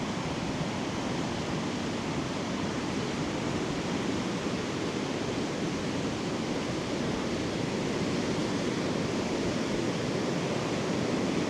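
Steady rushing noise of wind and sea surf on an open beach, even in level throughout with no distinct breaks or impacts.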